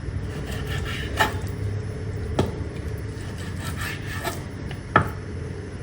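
A blunt kitchen knife sawing back and forth through raw steak on a cutting board, cutting it into strips. Three sharp knocks of the blade against the board come through, the loudest near the end.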